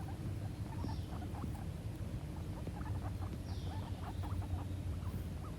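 Guinea pigs making many quick short squeaks and chirrups, with a higher falling squeal about a second in and again about three and a half seconds in, over a low steady rumble.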